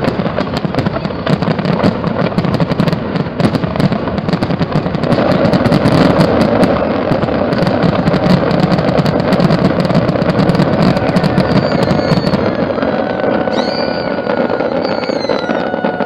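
Fireworks display going off in a dense, continuous run of crackles and pops. A few thin steady tones join in near the end.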